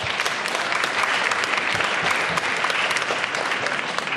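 Audience applauding: many people clapping at once, the applause dying away near the end.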